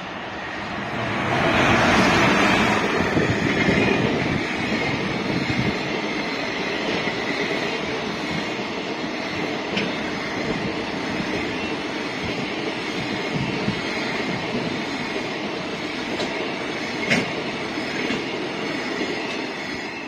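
EF210 electric locomotive and its container freight train passing close by. The noise peaks about two seconds in as the locomotive goes past, then settles into a steady rumble of container wagons on the rails, with a few sharp wheel clicks.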